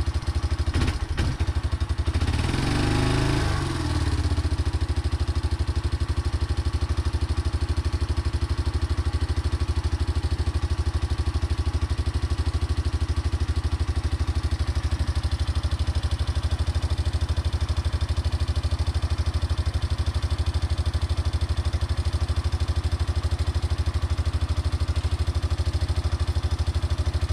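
Freshly rebuilt Yamaha Moto-4 350 ATV's single-cylinder four-stroke engine idling steadily with its plastics off, with a brief louder, rising-and-falling surge about three seconds in.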